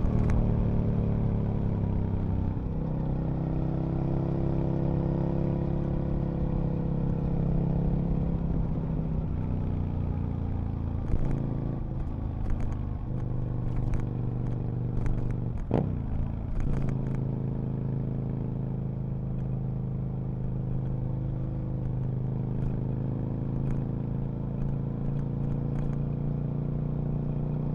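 Aprilia RSV Mille RP's V-twin engine settling from a falling rev into a steady idle. There is a single quick throttle blip about halfway through, with scattered clicks and clatter around it.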